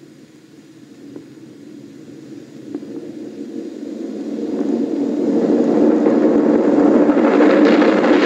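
A low, noisy sound that swells steadily louder over several seconds, from a cartoon's soundtrack played through a device's speaker.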